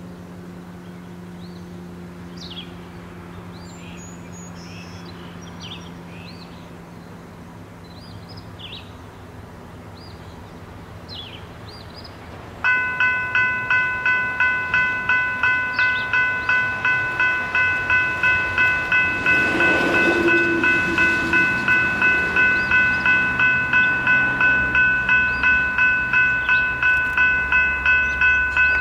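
Birds chirping over a low steady hum. About 13 seconds in, a railroad grade-crossing bell starts ringing at about two strikes a second as the crossing activates for an approaching train. A deep rumble from the oncoming train builds near the end.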